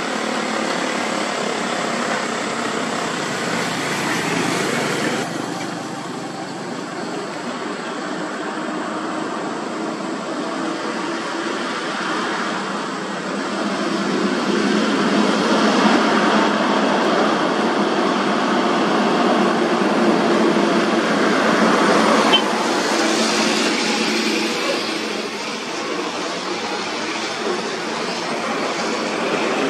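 Heavy Scania diesel tractor-trailer trucks hauling heavy equipment on low-loader trailers drive past: engines running and tyres rolling on the road, with a motorcycle passing among them. The sound changes abruptly about five seconds in and is loudest in the middle, as a truck goes by.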